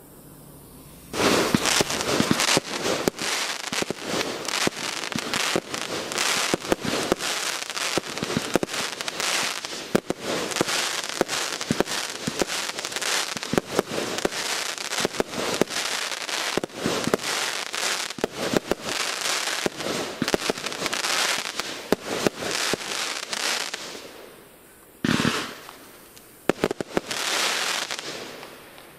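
Aerial fireworks bursting and crackling. A dense run of rapid pops and crackles starts about a second in and goes on until near the end. There the sound drops away briefly, then one more burst sets off more crackling.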